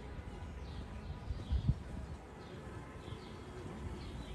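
A bird chirping over and over, short falling notes about twice a second, over a steady low outdoor rumble. Two dull low thumps come about one and a half seconds in.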